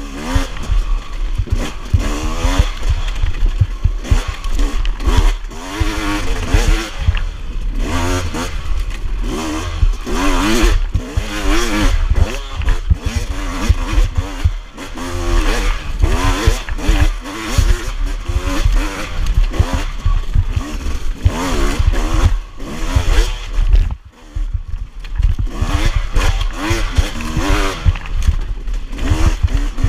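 Off-road enduro motorcycle engine revving up and down as it is ridden along a trail, its pitch rising and falling every second or so. The rider briefly closes the throttle about 24 seconds in.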